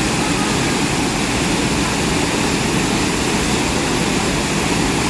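Loud, steady rush of a waterfall's falling water, an even hiss without pauses.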